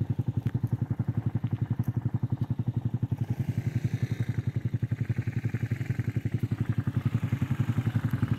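Motorcycle engine idling, a steady, even beat of rapid firing pulses.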